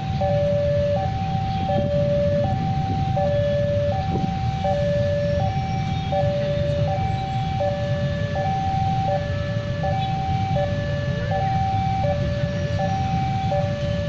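Railway level-crossing warning alarm sounding its two-tone signal, a higher and a lower tone alternating about every three-quarters of a second, warning that a train is approaching. Under it runs a steady low rumble.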